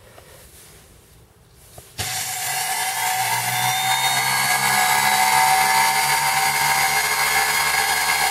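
Homemade cut-off saw's washing-machine motor switched on about two seconds in, spinning the blade up with a slightly rising whine and then running steadily, free-running without cutting.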